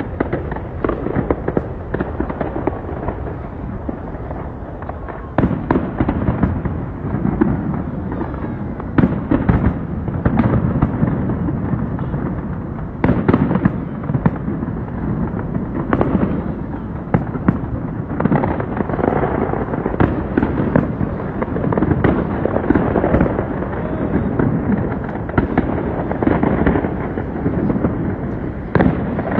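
Fireworks display going off: a continuous rumble and crackle of shells bursting, with many sharp bangs scattered through it.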